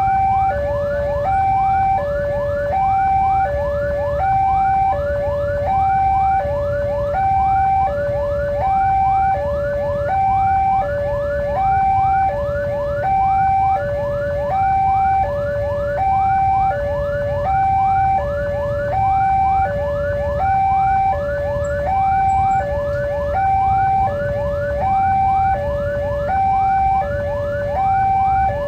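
Railway level-crossing warning alarm: an electronic two-tone signal alternating steadily between a low and a higher note, each held for about three-quarters of a second, with a fast run of rising chirps over it. A steady low rumble lies underneath.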